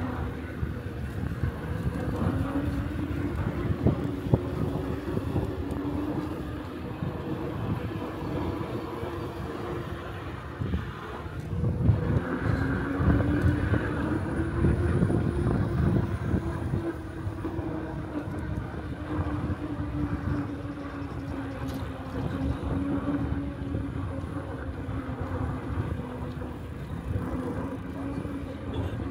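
Electric e-bike motor whining under way, its pitch rising and falling with speed: it dips about eleven seconds in, climbs as the bike speeds up again, then slowly falls. Wind rumbles on the microphone throughout.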